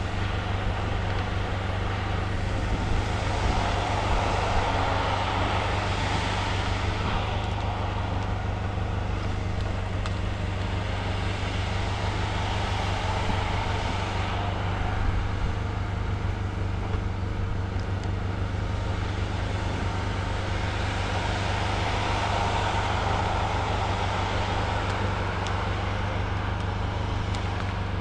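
Cat 568 shovel logger's diesel engine running steadily, its sound swelling and easing a few times as the machine works under load.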